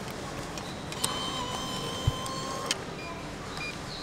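Vending machine bill acceptor drawing in a 1000-yen banknote: a motor whir lasting about a second and a half, starting and stopping with a click. A couple of short beeps follow near the end as the keypad is pressed.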